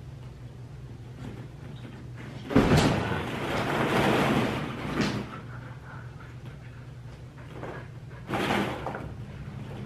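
Plastic ball-pit balls rustling and clattering as two huskies move about in an inflatable ball pit. There is a burst about two and a half seconds in that lasts a couple of seconds, and another shorter one near the end.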